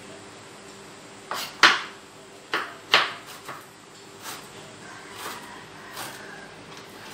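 Kitchen knife knocking on a cutting board while slicing ginger: about eight sharp knocks at uneven intervals, the loudest ones in the first three seconds, then softer taps.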